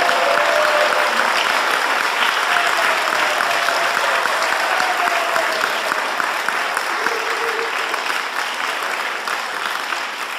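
Audience applauding, with a few voices calling out over the clapping early on; the applause slowly dies down toward the end.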